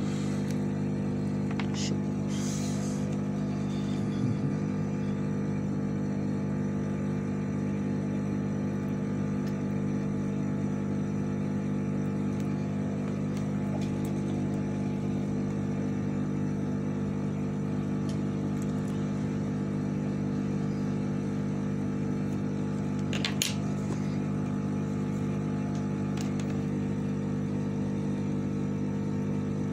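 Steady machine hum from electronics-repair bench equipment, with a few faint clicks of small tools.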